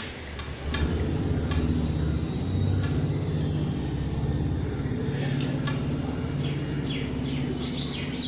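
A steady low hum like a running engine, with soft rustles and ticks as dry flattened rice (poha) is scooped by hand into a glass jar. Short repeated bird chirps come in about five seconds in.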